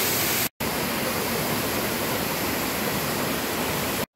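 Steady, loud rush of flowing water, a mountain stream or cascade close by, breaking off for an instant about half a second in and again near the end.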